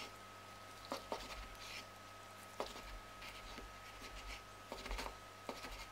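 Chef's knife slicing through a roast chicken breast on a wooden chopping board: quiet, soft scraping strokes as the blade cuts, and about five light knocks as it meets the board.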